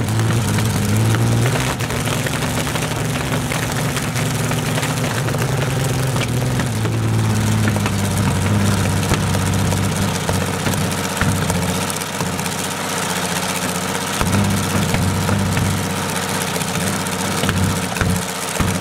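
Rolls-Royce Merlin V12 aero engine, as fitted to the Hawker Hurricane, running at low revs on a display stand. Its deep rumble dips in speed about a second and a half in and picks up again around seven seconds.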